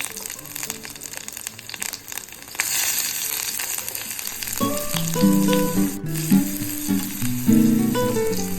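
Food sizzling as it fries in hot oil in a pan, with a crackling hiss that grows much louder about two and a half seconds in. Background music with plucked-string notes joins about halfway through.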